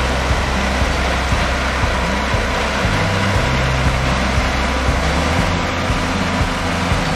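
Heavy farm machinery at corn harvest running steadily and loudly: a low engine drone under a dense, even mechanical noise.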